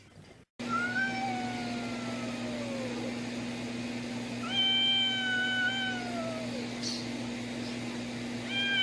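A cat yowling at a dog: long drawn-out wails, the first sliding down in pitch, the second held then falling, and a third starting near the end, the cat's warning to the dog. A steady low hum runs underneath.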